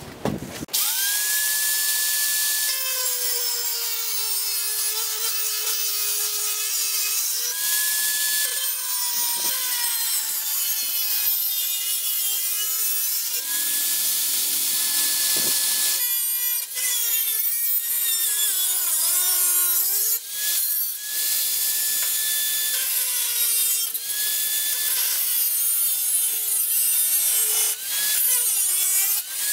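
Angle grinder with a cut-off disc cutting through a steel circular saw blade. The motor whines up to speed about a second in, and its pitch sags again and again as the disc bites into the steel under load, over a steady hiss of cutting.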